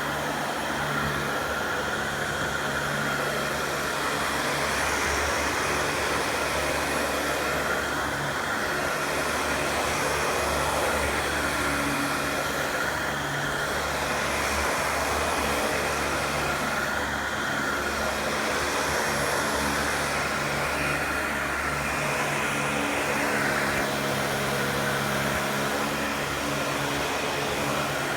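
Dyson DC40 upright vacuum cleaner running steadily: rushing airflow with a thin, steady motor whine on top.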